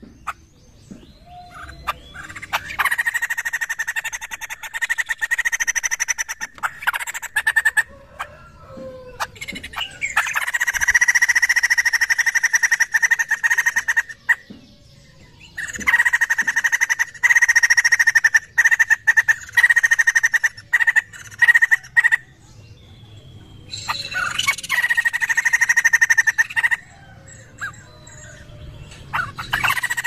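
A poksay laughingthrush singing loudly in bursts of rapid, rattling chatter, about four bursts of several seconds each with short pauses between them.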